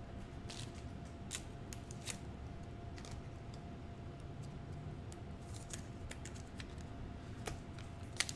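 Quiet room tone with a faint steady hum and scattered light clicks and ticks. Near the end comes a quick crinkle as a foil trading-card pack is picked up off the mat.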